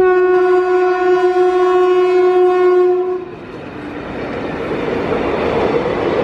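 Indian Railways WAP-4 electric locomotive sounding its horn: one steady note held for about three seconds. The horn stops and the running noise of the locomotive and its coaches passing close by follows, growing louder.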